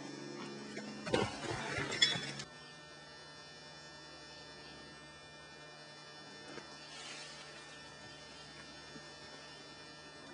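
A short burst of scuffing noise with a sharp knock about two seconds in, which cuts off abruptly. A steady low hum follows.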